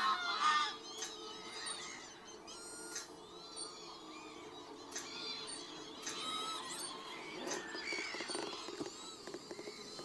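A busy chorus of waterbird calls: greylag geese honking loudest near the start, then many overlapping whistled and gliding calls from the flock on the lake.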